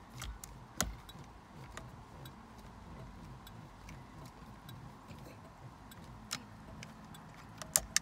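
Small screwdriver driving the screw that holds the hazard switch into a steering column, with scattered light clicks and ticks, the sharpest about a second in and a close pair near the end.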